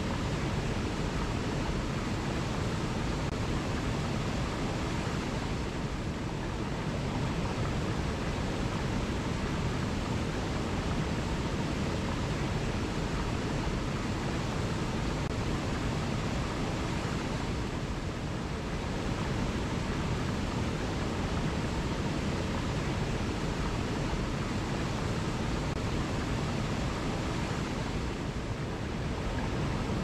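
Small waterfall cascading over rocks into a pool: a steady, even rush of water.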